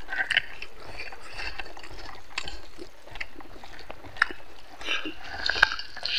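Close-up eating sounds: fingers kneading rice and pork curry on a banana leaf and mouth sounds of chewing, with scattered sharp clicks.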